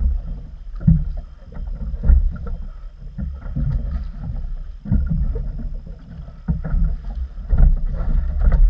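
Choppy water slapping against an inflatable boat's hull and tubes, with wind buffeting the microphone: an irregular low rumble broken by scattered knocks.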